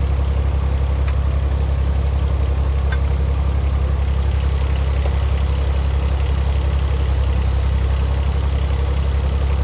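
Mini excavator engine idling steadily, with a couple of faint clicks about one and three seconds in as a steel pry bar levers the rubber track back onto the front idler.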